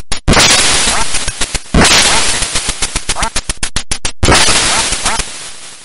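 Rapid gunfire: a fast string of cracks, then three long loud bursts of fire, the last fading out near the end.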